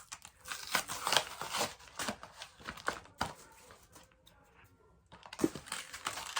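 Plastic packaging crinkling and rustling as toys are handled, in irregular crackly bursts, with a quiet spell about four seconds in before the crinkling starts again.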